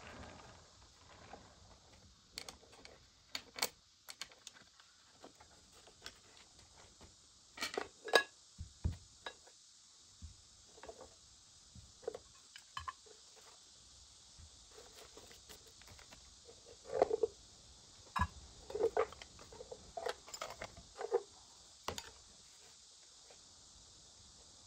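Irregular knocks, taps and light rattles of an old wooden shoe shine box being handled: turned on a turntable, its lid lifted and shoe brushes set down on the table. The clatter is loudest about eight seconds in and again between about seventeen and twenty-two seconds in, over a faint steady hiss.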